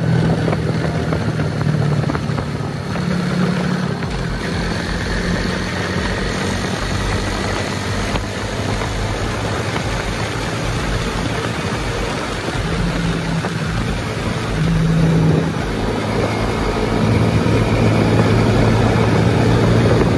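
Motorcycle engine running under way, its pitch shifting up and down several times with the throttle, over a steady rushing noise.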